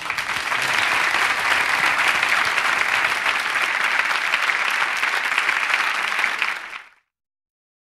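Studio audience applauding steadily, stopping abruptly near the end.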